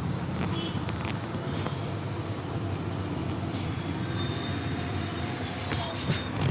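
Steady low rumble of street traffic, with a few faint clicks and a sharper knock just before the end.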